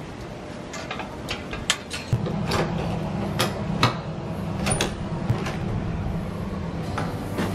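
Sharp clicks and knocks of door hardware being handled: a metal gate's latch, then a door knob being turned and a door swung open. A steady low hum comes in about two seconds in.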